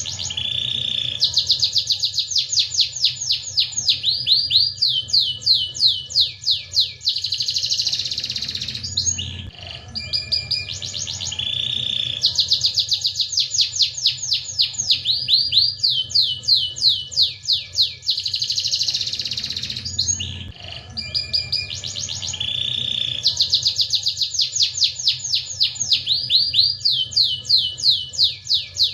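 Domestic canary singing: a long song phrase of rapid trills and fast up-and-down sweeping notes, repeated three times, about every eleven seconds.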